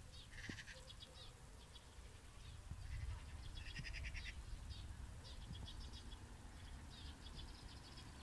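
Faint outdoor ambience: a low wind rumble on the microphone, with repeated short bursts of a high, rapid trill.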